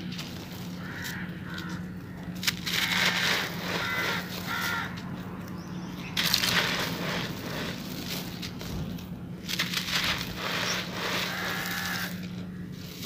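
Dry sand-cement lumps crumbled by hand: gritty crunching and crackling as the lumps break, with a dry rushing patter as grains and fine dust pour through the fingers, coming in uneven surges. A bird calls several times in the background over a steady low hum.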